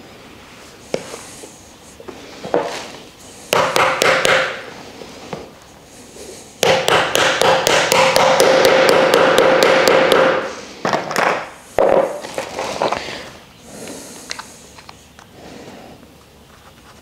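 A hammer driving triangle connectors into the end of a wooden plant-stand upright. There are a few scattered taps, then a short cluster of blows, then a rapid run of strikes lasting about four seconds in the middle, then a few last taps.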